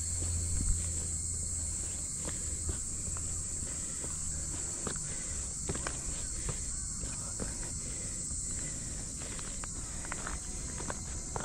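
A steady high-pitched chorus of summer cicadas, with scattered footsteps and small clicks over it.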